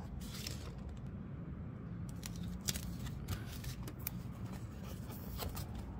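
Paper and packaging rustling and crackling in short sharp bursts as an instruction sheet is moved aside and a flat Onewheel footpad sensor is slid out of its sleeve, over a steady low hum.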